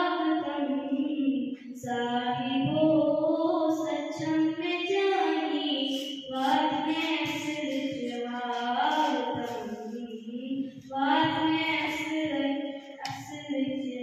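A child's voice singing a slow melody solo into a microphone, holding long notes with short breaks between phrases.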